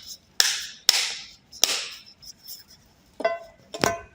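Sharp plastic clicks and knocks as a pocket MiFi's battery and back cover are fitted back in place: three quick snaps in the first two seconds, then two ringing knocks near the end.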